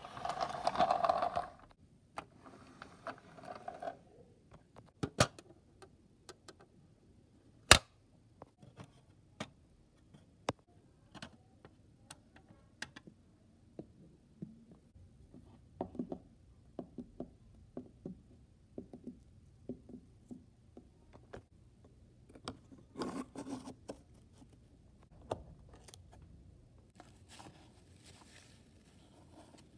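Scattered taps and clicks of a plastic model horse and toy stable pieces being handled on a wooden floor, with a couple of brief rustles.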